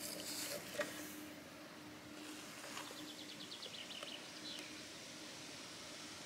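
Quiet rural outdoor ambience: faint background hiss with a low steady hum, a soft click about a second in, and a brief rapid high-pitched trill about three seconds in.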